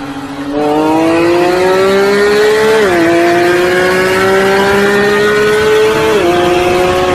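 A car engine accelerating hard under load. Its pitch climbs steadily and drops with an upshift about three seconds in and again about six seconds in.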